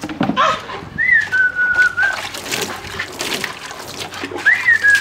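A person whistling: a note that rises and then holds for about a second, about a second in, and another short rising whistle near the end, with scattered knocks between them.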